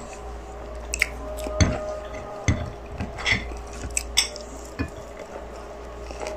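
Eating sounds: chicken kabsa rice and chicken being chewed and picked up by hand from a plate, with irregular short clicks and squishes, over a steady low hum.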